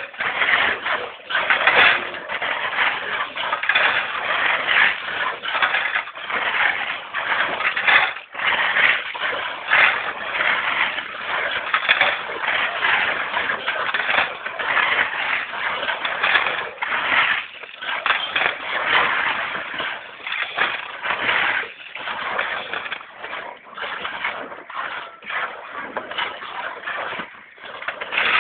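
Shovels scraping and crunching through a heap of gravel and cement while concrete is mixed by hand: a continuous run of gritty scrapes broken by short, irregular pauses.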